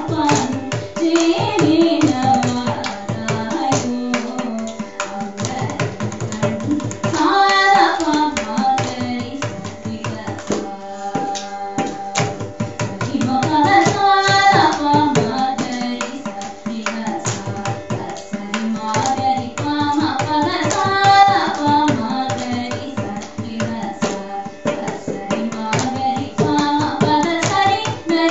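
A woman sings a Carnatic song in raga Sama in long phrases of held, gliding notes, over a steady drone and rhythmic percussion strokes. Her voice drops out briefly about eleven seconds in while the drone and percussion carry on.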